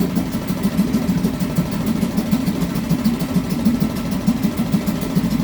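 Mariner 3.5 hp outboard motor running steadily at idle on part choke, with a fast, even firing beat, just after a cold start.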